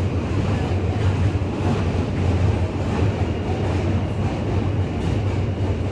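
New York City subway train running, a steady low hum under a dense rushing noise with no let-up.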